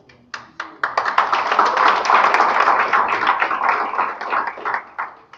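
Audience applauding: a few scattered claps at first, then dense clapping from about a second in that thins out and stops near the end.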